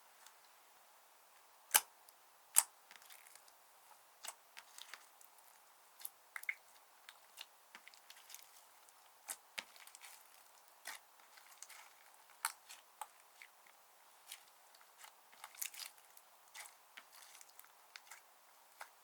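Slime being kneaded and stretched by hand: irregular sticky pops and clicks, with two louder snaps about two seconds in.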